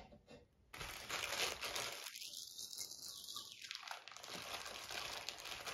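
Thick plastic bag crinkling and crunching as hands work to tear it open, starting under a second in after a brief hush.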